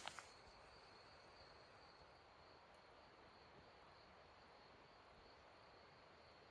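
Near silence with a faint, steady, high insect trill, typical of crickets, over a soft background hiss.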